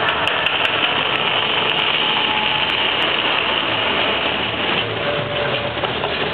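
Loud, steady roar of the Mirage volcano attraction's eruption effects.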